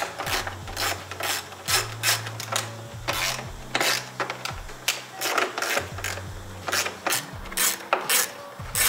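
Small socket ratchet clicking in short runs as 7 mm screws are loosened from a plastic truck mirror housing, mixed with knocks of the tool against the plastic.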